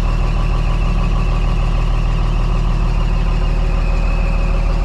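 Komatsu D65 bulldozer's diesel engine running steadily at an even, unchanging speed just after a hydraulic hose repair.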